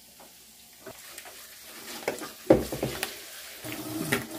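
Pork pieces sizzling as they fry into torresmo (crackling) in their own rendered fat, nearly done, under the knocks and clatter of dishes being washed at a kitchen sink, the sharpest clatter about two and a half seconds in.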